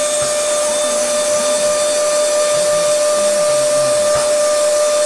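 Steady machine noise: an even hiss with a constant, unchanging whine.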